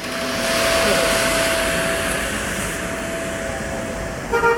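Steady rush of road traffic noise, with a car horn sounding briefly near the end.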